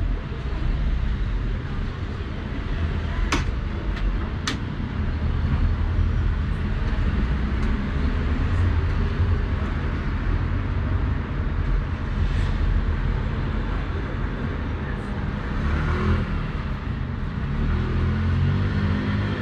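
Steady low rumble of road traffic, with a few sharp clicks three to four and a half seconds in.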